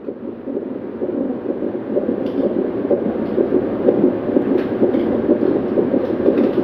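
Doppler fetal heart monitor playing the baby's heartbeat through its speaker: a fast, steady pulsing, at about 130 beats a minute.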